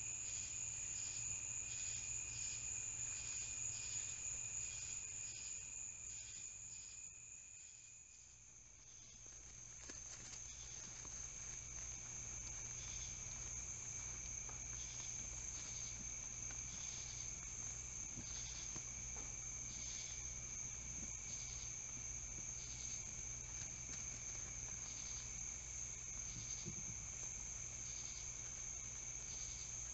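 Night chorus of crickets: a steady high-pitched trill, with a slower call pulsing a little more than once a second. About eight seconds in, the chorus dips briefly and resumes at a slightly lower pitch.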